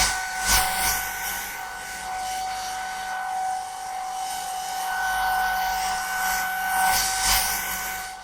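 Steady rushing, hissing air noise with a steady high whine through it, swelling and easing a few times; a machine moving air.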